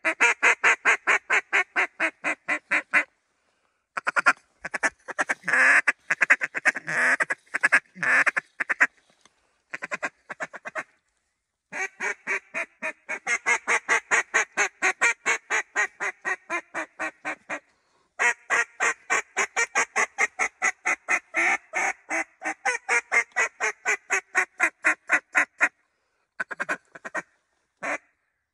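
Mallard-style quacks in long, rapid runs of about five a second, loud and close, broken into several stretches by short pauses.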